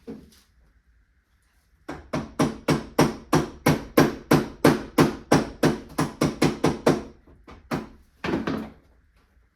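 A rapid run of about twenty hammer-like knocks at roughly four a second, starting about two seconds in, then two more blows near the end.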